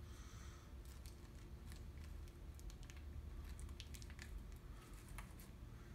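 Faint, scattered small clicks and light rustling from small electronic parts being handled and pressed into a solderless breadboard, over a low steady hum.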